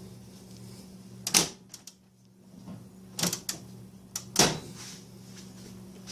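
Wooden and metal knocks and clunks from handling the cash drawer of a 1920 National Cash Register, about six separate knocks, the loudest about a second and a half in.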